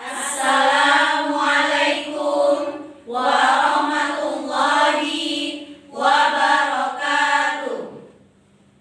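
Children's choir singing three long held phrases, the last fading out about eight seconds in.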